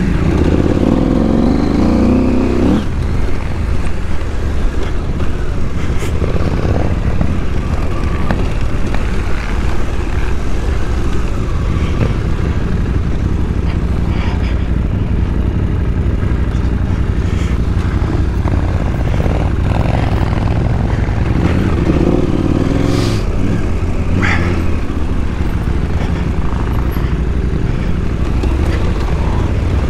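KTM adventure motorcycle engine running continuously while riding, with a few rattles and knocks. The engine note swells briefly near the start and again about two-thirds of the way through.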